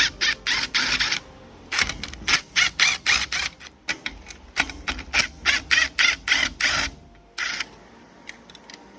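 A screwdriver backing out the screws that hold a garage door opener's logic board: runs of quick rasping clicks, about four or five a second, broken by short pauses.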